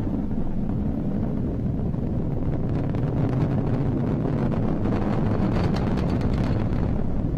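Falcon 9 first stage's nine Merlin engines firing during ascent, a steady low rumble with crackling that grows stronger about five seconds in.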